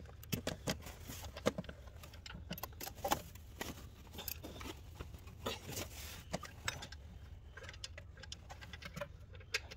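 Scattered light clicks, taps and rubbing from a serpentine belt and tools being handled against the engine's pulleys and brackets, with clothing brushing close to the microphone, at an irregular pace.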